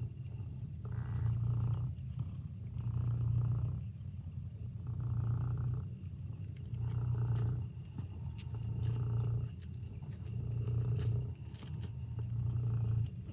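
Domestic cat purring continuously, the purr swelling and easing with each breath about every two seconds.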